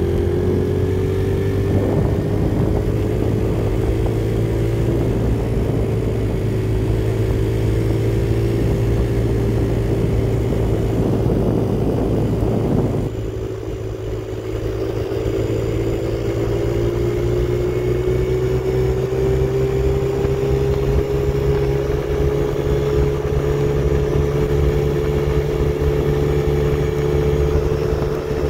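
Yamaha TT-R50E's small single-cylinder four-stroke engine running under load at riding speed, over a rushing noise of wind and road. The rushing drops away with a brief dip in loudness about halfway, and the engine note then climbs slowly.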